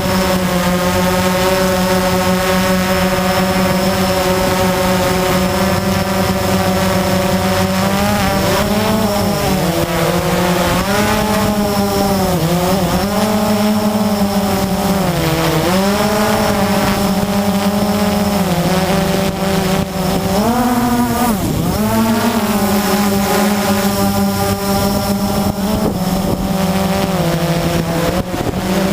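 Blade 350 QX quadcopter's brushless motors and propellers whining steadily. From about eight seconds in, the pitch repeatedly dips and rises as the throttle is changed, then settles again.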